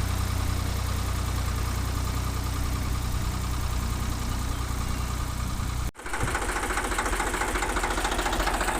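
Ford 3000 tractor's three-cylinder engine running steadily after its cylinder-head repair. About six seconds in the sound cuts out for an instant and comes back as a brighter, slightly louder engine sound.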